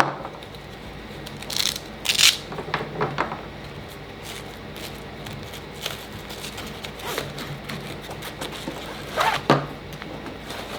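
A cam band strap being threaded through the slots of a diving backplate: a few short scrapes and rubs of webbing, the loudest about two seconds in and again near the end.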